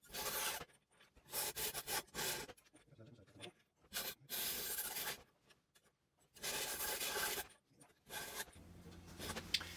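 Hand hacksaw cutting a thin Micarta blank clamped in a bench vise: runs of rasping back-and-forth strokes with short pauses between them, stopping about eight seconds in.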